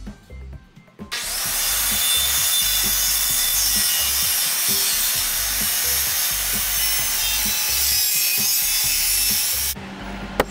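A corded DeWalt circular saw cutting through a pine board: a loud, steady noise that starts suddenly about a second in and stops near the end. A single sharp knock follows at the very end.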